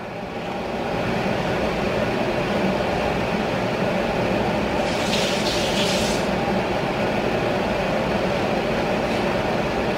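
Steady rushing noise at the stovetop, where two rosette molds sit in a pan of hot frying oil. A brief brighter hiss comes about five seconds in.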